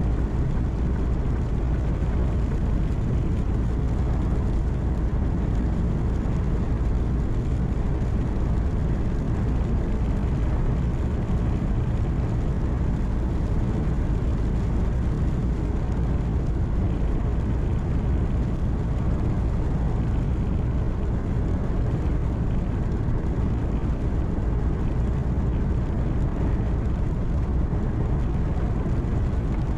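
Steady low rumble of a truck's engine and road noise heard from inside the cab while driving, even throughout.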